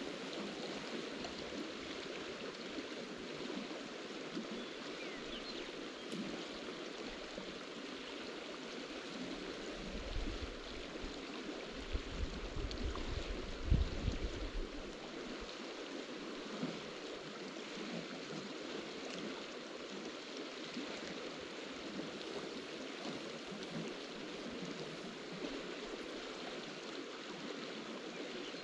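Steady rush of flowing creek water. A few brief low rumbles come through near the middle.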